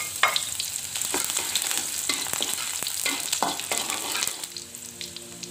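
Chopped shallots sizzling in hot oil in a wok, with a metal spatula scraping and clicking against the pan as they are stirred. Background music comes in near the end.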